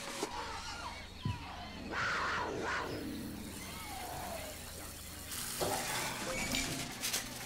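A plastic wrapper rustles as a disposable cup is unwrapped. Then, a little past halfway, a bathroom faucet starts running water into the plastic cup as a steady hiss.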